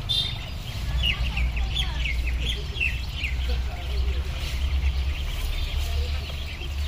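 Ducklings peeping: many short high calls overlapping in a constant chatter, over a low steady rumble.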